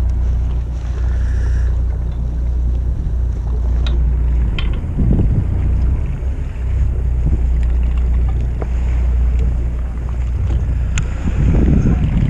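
Fishing boat's engine idling with a steady low drone, with wind buffeting the microphone. A few light clicks come through now and then.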